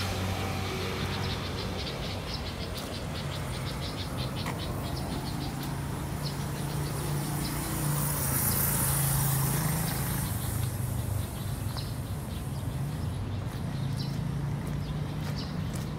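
Road traffic on the lakeside road: a steady engine hum, with a vehicle swelling past about halfway through. Short high chirps or ticks are scattered over it.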